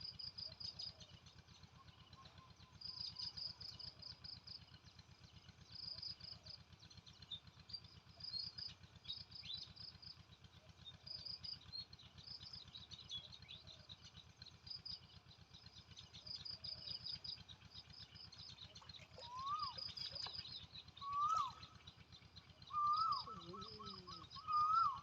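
Birds calling: bursts of rapid high chirping repeat every second or two throughout. From about two-thirds of the way in, another bird adds short whistled notes that rise and fall, louder toward the end.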